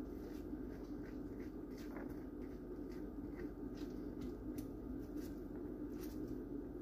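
Papaya seeds being scooped out of a halved papaya by hand: faint, irregular soft clicks and squelches, a few a second, over a steady low hum.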